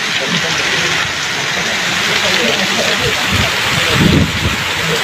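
Heavy rain and hail pelting down in a steady dense hiss, with low rumbling surges about three to four seconds in.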